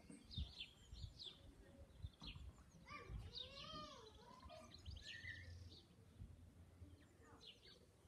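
Faint outdoor ambience of small birds chirping in short, scattered calls, with a longer rising-and-falling call about three seconds in and occasional low thuds.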